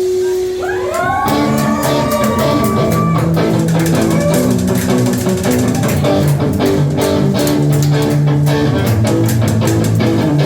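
Live rock band playing an instrumental passage. Near the start a guitar note bends upward and is held for about two seconds, over a moving bass line and drums.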